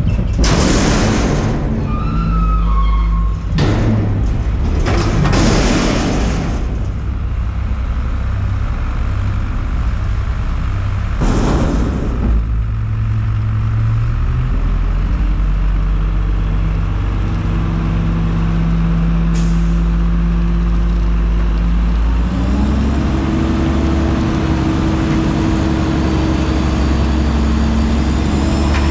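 Front-load garbage truck dumping a dumpster into its hopper: several loud bangs over the first twelve seconds as the container is shaken and knocked to empty it. The truck's engine and hydraulics run steadily, then rise in pitch about 22 seconds in as the packer blade pushes the load back.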